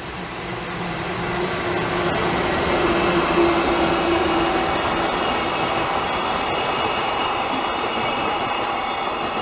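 Electric freight locomotive passing close by, its hum swelling up over the first few seconds. It is followed by a long string of container flat wagons rolling past with steady wheel-on-rail noise and thin, high squealing tones from the wheels.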